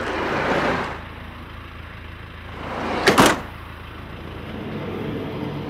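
Minibus side door: a rushing slide of noise, then a sharp slam about three seconds in as the door shuts, with the van's engine running low and steady underneath.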